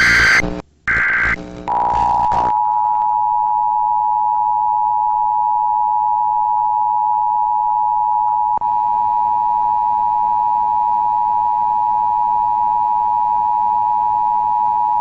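Emergency Alert System broadcast: the last short bursts of the digital SAME header, then the EAS attention signal, a steady two-note alert tone starting about two seconds in, with a brief blip a little past halfway. It is the alert tone that comes before a monthly test message.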